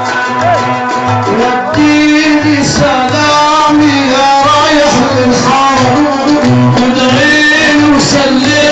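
Arabic party music from a band: a steady drum beat under a wavering melody line, growing fuller and louder about two seconds in.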